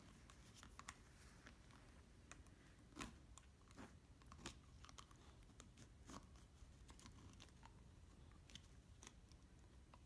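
Beagle puppy gnawing and shredding a plastic whiffle ball: faint, irregular crunches and sharp clicks of teeth on the hard plastic, a few louder cracks among them.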